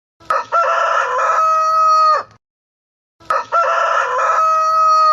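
Rooster crowing twice, two identical cock-a-doodle-doos each about two seconds long, the second starting about three seconds after the first.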